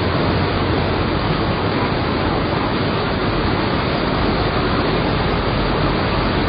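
Fast-flowing floodwater rushing in a torrent: a loud, steady rush of water with no let-up.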